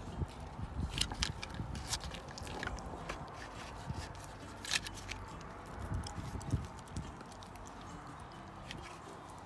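A corgi chewing and gnawing a rawhide chew, irregular crunches and clicks that thin out after about seven seconds.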